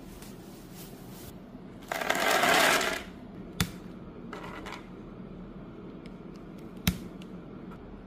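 Plastic packaging wrap rustling loudly for about a second, then two sharp clicks about three seconds apart as mechanical keyboard switches are pressed into the hot-swap plate, with a few light ticks around the second click.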